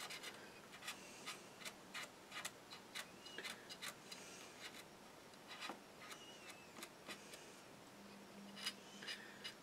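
Cotton bud working wash off a plastic model tank hull: faint, irregular light clicks and taps, about two or three a second, with a couple of brief faint squeaks.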